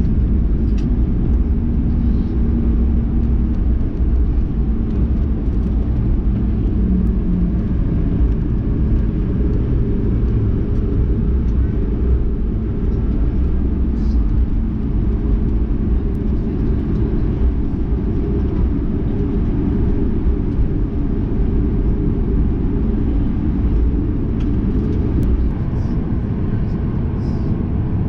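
Steady low rumble in the cabin of a Boeing 737 MAX 8 taxiing, its CFM LEAP-1B turbofans at idle, with a faint steady hum in the first half.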